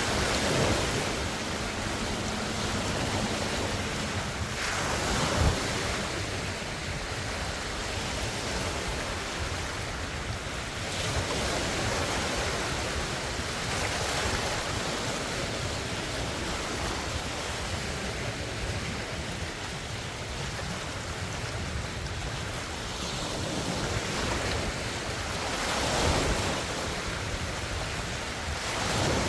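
Large wind-driven lake waves breaking and washing against the shore, a continuous rush with several swells as waves come in, one short sharp splash about five seconds in. Wind buffets the phone's microphone throughout.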